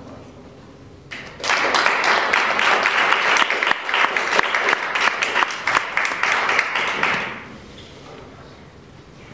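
Audience applauding: a burst of clapping that starts about a second in and fades out about six seconds later.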